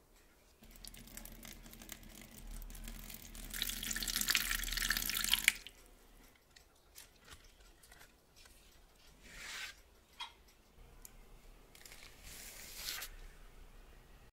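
Water pouring steadily into a metal baking tray to make a water bath for the cheesecake pan, growing louder and then stopping abruptly about five and a half seconds in. Later come a few short, quieter rustles of the aluminium foil wrapped around the pan.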